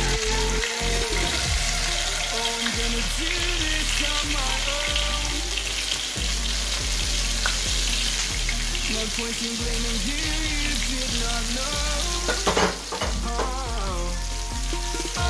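Flour-coated fish pieces sizzling steadily as they fry in shallow hot oil in a nonstick frying pan.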